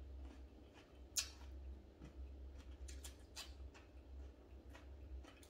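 Close-up chewing: soft wet mouth clicks and smacks a few times a second, with one sharper click about a second in, over a low steady hum.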